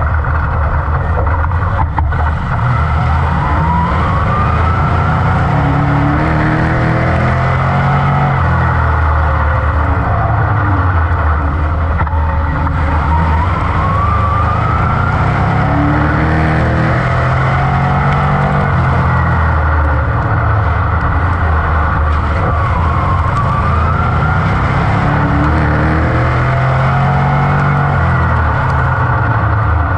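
Dirt modified's GM 602 crate small-block V8, heard from inside the cockpit. It runs hard throughout, rising in pitch again and again as it accelerates and falling back as it eases off.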